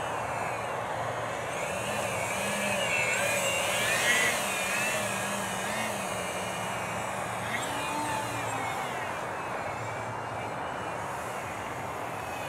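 Small RC foam flying wing's electric motor and propeller whining in flight, the pitch wavering up and down as the plane swoops past and the throttle changes, loudest about four seconds in.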